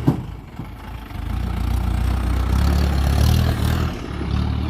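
An off-road vehicle's engine drawing near and driving past, growing louder from about a second in, loudest a little past the middle, then easing off near the end.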